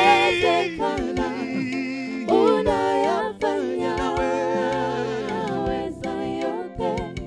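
Male lead voice singing a gospel worship song in long held notes that glide up and down, with backing singers' voices behind him.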